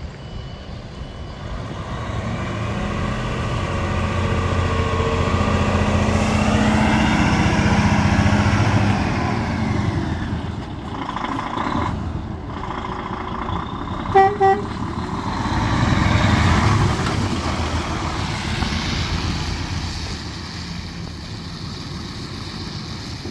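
DAF XF106 460 tractor unit's PACCAR MX-13 six-cylinder diesel pulling away and driving past, the engine note rising and falling as it changes gear. Two short horn toots about fourteen seconds in; the engine fades as the truck drives off.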